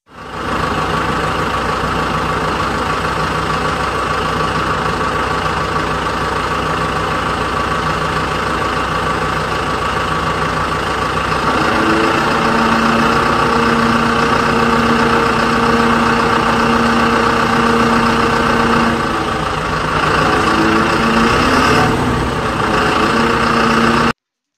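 Truck engine idling sound effect, steady and even. It starts and cuts off abruptly. About halfway through, a second steady hum joins in, dropping out briefly near the end.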